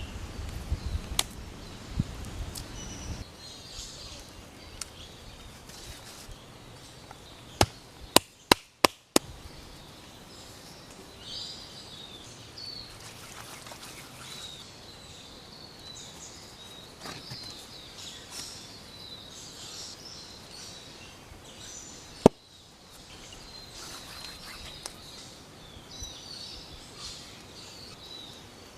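Sharp knocks, as of a tool striking wood: one, then a quick run of four, and one loud one about three quarters of the way through. Small birds chirp throughout.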